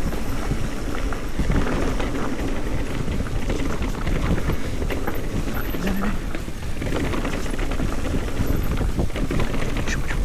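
Mountain bike rolling fast down a rough downhill trail: tyres crunching over dirt and rocks, with a steady clatter of knocks and rattles from the bike and wind rushing over the microphone.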